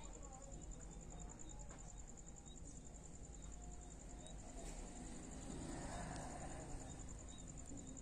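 A cricket chirping steadily in fast, even pulses, over a faint low background rumble.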